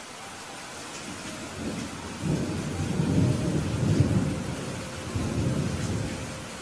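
Steady hiss of rain with a long low rumble of thunder that swells about two seconds in, is loudest around the middle and dies away near the end.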